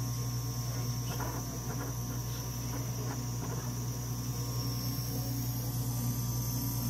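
Steady running hum of a Dimension RxL clinical chemistry analyzer, with a constant high-pitched whine over it and a few faint short sounds about one to three and a half seconds in.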